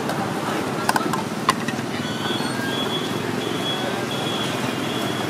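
Busy street ambience at a roadside food stall: steady traffic noise and background chatter, with a few sharp clinks about a second in. From about two seconds in, a high electronic beep repeats at an even pace, a little under twice a second.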